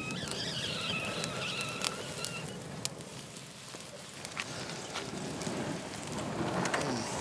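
Dry pine needles burning over mussels in an éclade, crackling and hissing with many scattered sharp pops. This is the noise the cook listens to, along with watching, to judge when the mussels are done.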